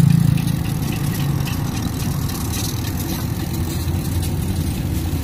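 KTMB Class 29 diesel-electric locomotive running light past at slow speed, its engine drone loudest at the start and then settling into a steady, lower drone as it moves off.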